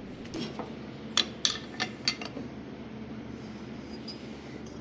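A quick run of sharp metal clinks, about six in under two seconds, as steel tooling and a wrench knock against the drawbar at the top of a vertical mill's head during a tool change.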